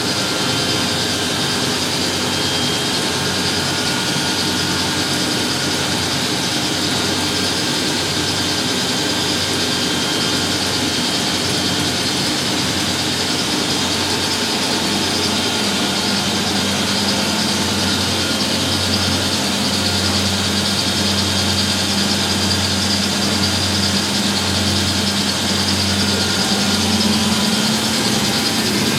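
Three washing machines on a high-speed spin together, giving a steady whirring run. From about halfway in, a lower hum joins and a low throb pulses about once a second.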